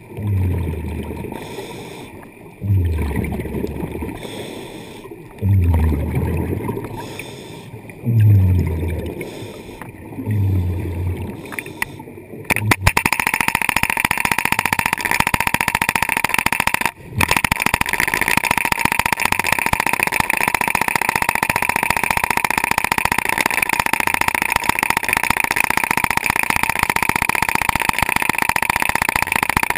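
Stanley BR-37 hydraulic breaker hammering rock underwater: a steady rapid run of blows starting about a third of the way in, with a brief stop about halfway. Before it, five low gurgling swells come a few seconds apart.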